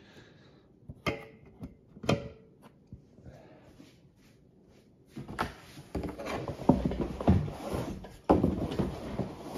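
Aluminium beverage cans set down on a granite countertop and stacked, a few light knocks in the first two seconds. From about five seconds in, louder irregular rustling and rubbing of things being handled.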